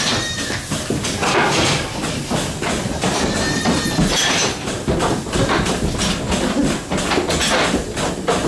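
Dairy goats bleating in a milking parlour, two drawn-out calls, one at the start and one about three seconds in, over a steady clatter of knocks from the animals and equipment.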